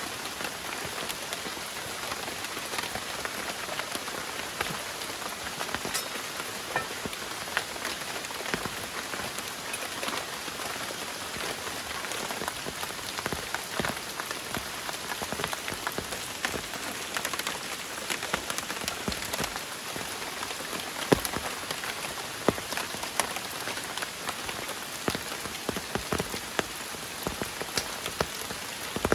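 Heavy rain falling steadily, a dense even hiss with many individual drops ticking through it and a few louder drop hits, the sharpest about two-thirds of the way through.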